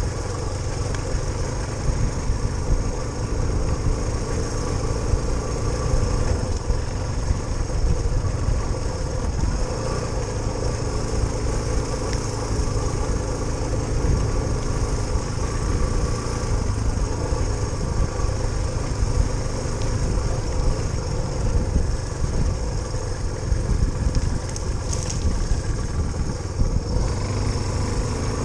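Suzuki DR350SE trail bike's single-cylinder four-stroke engine running at fairly steady revs.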